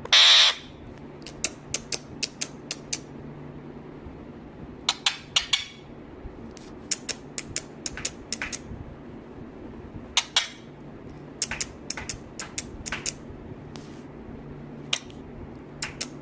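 A short, harsh high-pitched burst at the very start, then irregular sharp clicks and taps in quick clusters over a steady low hum.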